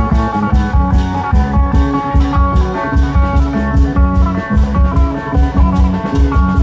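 Isan klong yao procession band playing through an amplified sound system: a plucked, guitar-like melody line over a fast, heavy drum beat.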